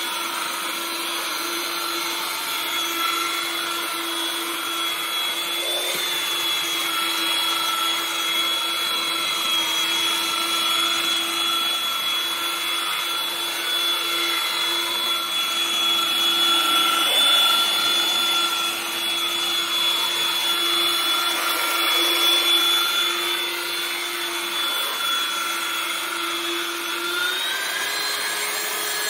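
Electric handheld putty sanding machine running with a steady motor whine and the rubbing of its round pad on a puttied plaster wall. The motor's pitch rises slightly near the end.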